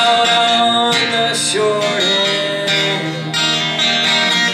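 Live music: an acoustic guitar strumming chords, with held notes ringing between the strums.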